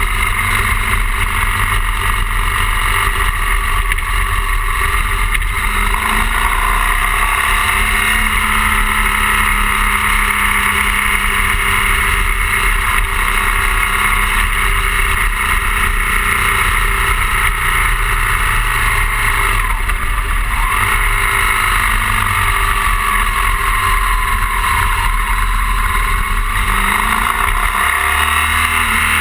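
BMW R 1200 GS flat-twin boxer engine running under way on a motorcycle ride, heard from the handlebars with steady wind and road noise. The engine pitch rises and falls a few times through the bends.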